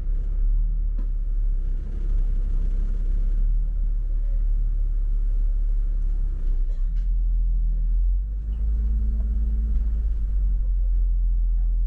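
Double-decker bus engine running as the bus drives, with a low, steady rumble heard from inside the upper deck. The engine hum shifts higher about two-thirds of the way through, then settles again.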